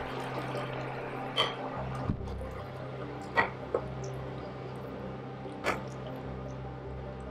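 Escabeche sauce simmering and bubbling in a pan, with a few sharp clicks scattered through and a steady low hum underneath.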